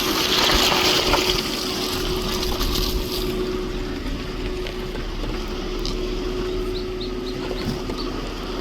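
Floodwater rushing, loudest in the first three seconds, over a steady low hum.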